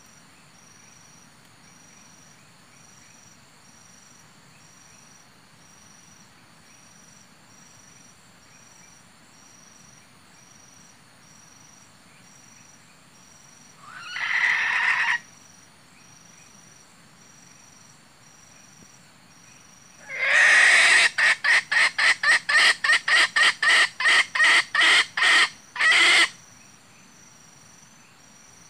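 Wild junglefowl clucking calls played from a handheld electronic bird caller as a lure: one short call about halfway through, then a loud call that runs into a fast series of clucks, about three a second, for some five seconds. Steady insect chirping underneath.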